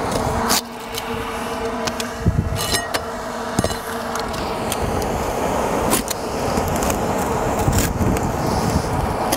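Knife cutting asphalt roof shingles: scattered short scrapes and clicks over a steady background rumble with a faint low hum.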